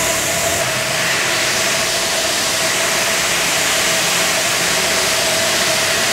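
Steady din of stone-factory machinery running, an even hiss-like noise with a faint constant hum-tone through it.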